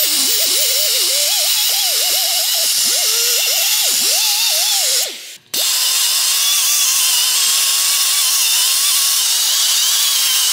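Pneumatic die grinder with a sanding drum running, a loud hiss of air over a whine that wavers in pitch as it bites into the rusty bushing bore of the subframe. It stops for a moment just past halfway, then starts again, its whine now steadier and higher.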